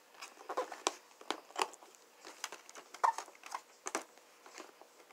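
Fingers tapping, scraping and picking at a small cardboard box while trying to open its lid with one hand: faint, irregular clicks and rustles, a little louder about three seconds in.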